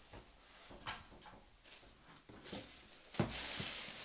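Faint handling sounds from repacking a model locomotive: a few light knocks, then a thump about three seconds in followed by the rustle of a plastic wrap being folded over a styrofoam packing insert.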